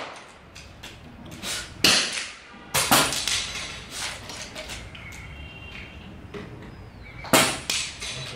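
Pre-charged pneumatic (PCP) air rifles firing one after another as sharp cracks: two about two and three seconds in and a pair near the end, with fainter clicks between.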